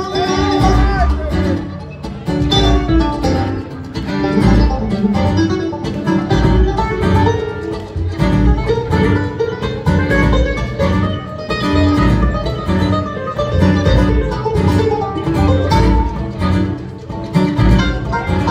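Live bluegrass band playing an instrumental jam: picked acoustic guitar and banjo over a steady bass rhythm.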